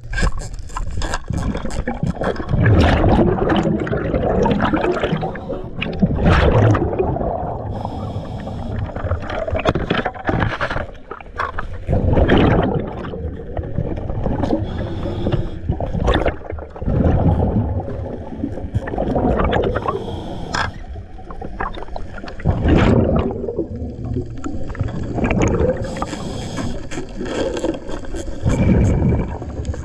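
Scuba diver breathing through a regulator underwater: exhaled bubbles gurgle out in loud surges every three to four seconds, with a fainter hiss of inhalation between them.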